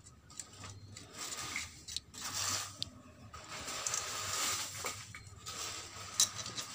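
Cylinder-head nuts being threaded onto the studs by hand: irregular small metallic clicks and scraping amid rustling handling noise.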